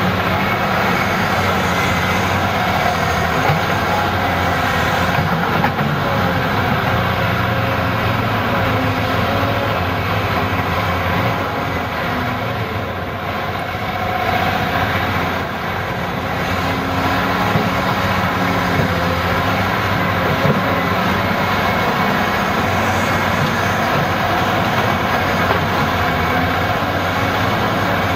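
Caterpillar 375 LME excavator's diesel engine and hydraulics working under load as it swings, dumps and digs, with a steady heavy engine note and a whine that rises and falls.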